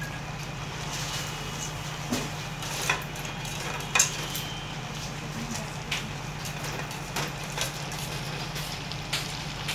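Chopsuey vegetables cooking in a pan on a gas stove: a steady low rush with faint sizzling, and a few light clicks and taps scattered through.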